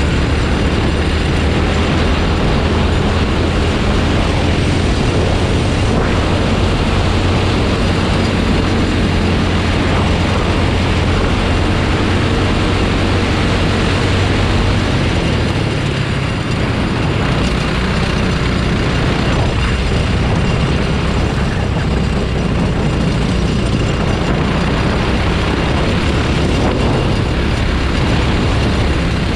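Kart engine running at racing speed, heard onboard with wind and road noise. The engine note dips briefly about halfway through, as when lifting for a corner, then builds again.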